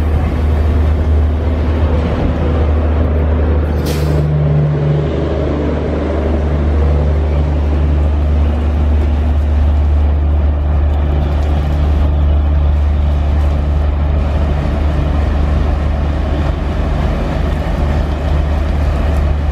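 ALCo WDG-3A diesel locomotive idling close by, a loud, steady deep rumble. A short hiss of released air comes about four seconds in.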